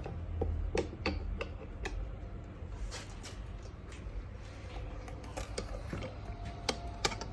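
Metal tire spoons clicking and knocking against the wheel rim as the bead of a new scooter street tire is levered on, in irregular sharp clicks over about seven seconds.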